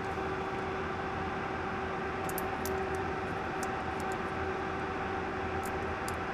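Steady hum of running bench equipment, such as a fan, with a faint pitched drone. A few faint light ticks come about two to four seconds in and again near the end.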